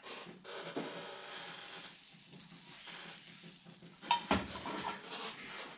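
Egg sizzling softly in a frying pan while a utensil scrapes and stirs it into an omelette, with one sharp knock from the pan about four seconds in.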